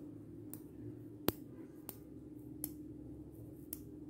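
Small magnetic balls (buckyball-type magnet beads) clicking as they snap onto one another: about five sharp separate clicks, one a little over a second in much louder than the rest.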